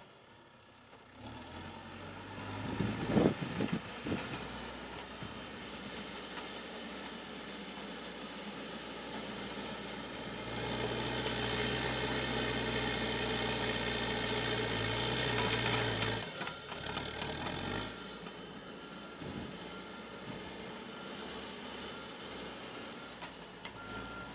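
Backhoe loader's diesel engine running, with a few loud clanks about three seconds in. The engine revs up under load from about ten seconds and drops back about six seconds later, and a reversing beeper sounds in short beeps near the end.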